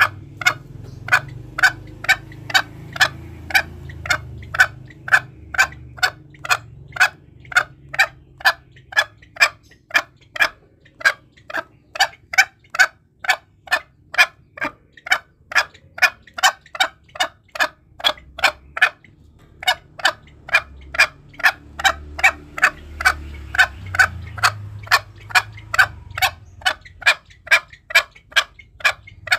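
Green junglefowl repeating short, sharp clucking notes at an even pace of about two a second, with a brief pause a little under two-thirds of the way through.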